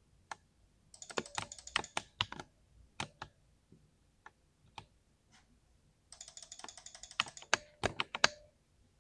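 Typing on a 60% mechanical keyboard: two quick runs of keystrokes, one about a second in and another from about six seconds, with single key presses in between.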